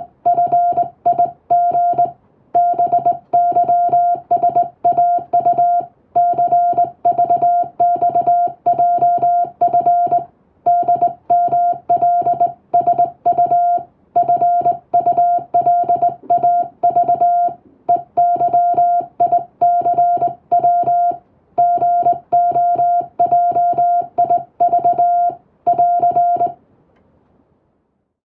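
Morse code in English sent by hand on a telegraph key, heard as a single mid-pitched beep keyed rapidly on and off into dots and dashes. It stops near the end.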